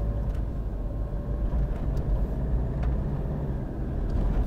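Low, steady rumble of engine and tyre noise inside the cabin of a lifted Toyota Fortuner driving over a broken road, with a few faint knocks from the bumps.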